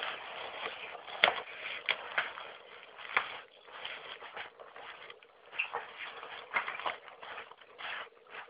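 Styrofoam packing peanuts rustling and clattering as they are pushed about and spilled around a shipping box, with irregular sharp clicks and crackles.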